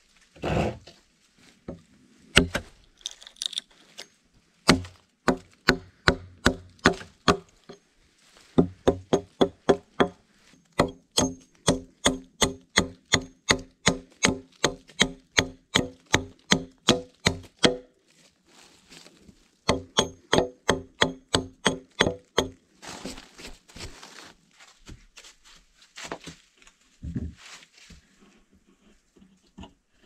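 An axe chopping into a log: quick, evenly spaced blows, about three a second, in runs with short pauses. Near the end come scattered lighter knocks and a burst of rustling.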